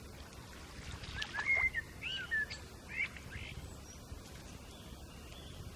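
A small bird calling: a quick run of short, curving chirps in the first half, over a steady low background rumble.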